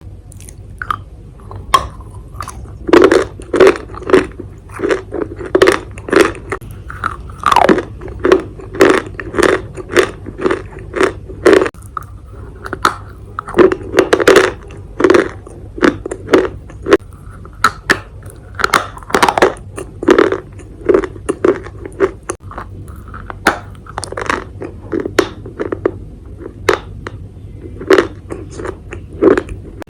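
Close-up sound of a person biting and chewing crunchy dry clay pieces: a continuous run of sharp, loud crunches, roughly two a second.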